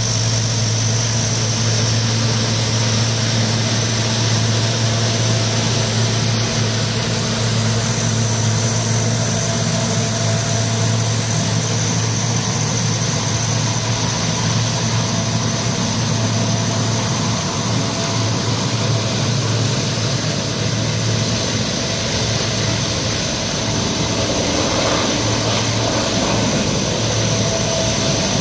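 Four-engine turboprop C-130 Hercules running on the ground while taxiing past: a steady, loud propeller drone with a high turbine whine over it.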